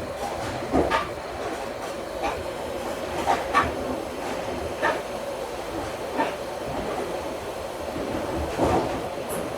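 Hot air rework gun blowing steadily over a surface-mount chip to reflow its solder, with irregular light clicks and taps.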